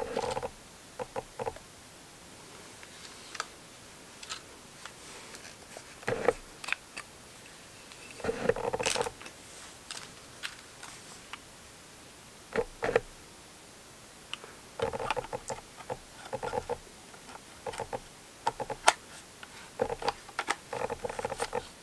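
Panasonic Lumix G7 body and its 14-42 mm kit lens being handled and the lens twisted onto the mount: scattered small clicks, taps and scrapes of plastic and metal, with a sharper click toward the end.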